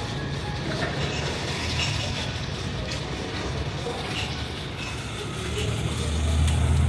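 A steady low engine rumble, swelling louder near the end, with faint light clicks of knives cutting watermelon flesh.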